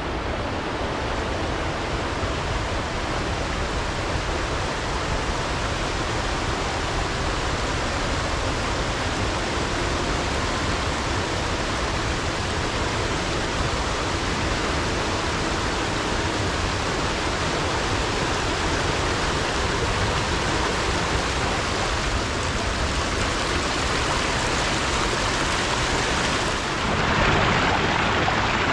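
Fast-flowing river rapids rushing steadily. Near the end a small waterfall pouring through a stone channel comes in close and the rushing grows louder and brighter.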